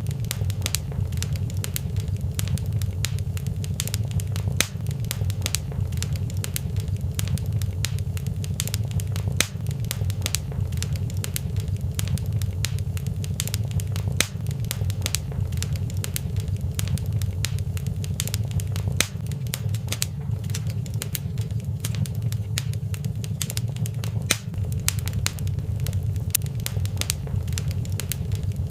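Wood fire crackling in a fireplace: a steady low rumble with many quick, sharp pops and snaps scattered throughout.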